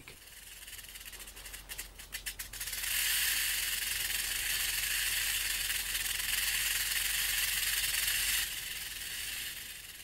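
Rattlesnake shaking its tail rattle as a warning: a few separate clicks about two seconds in, then a steady dry buzz for about five seconds that drops off suddenly near the end.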